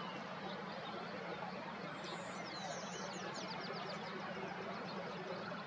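Wild birds singing, with quick runs of high, rapidly repeated notes, thickest a couple of seconds in, over a steady background noise.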